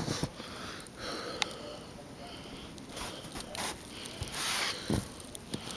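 A person breathing and sniffing close to the microphone, with a few faint clicks and rustles, one longer breath about three-quarters of the way through.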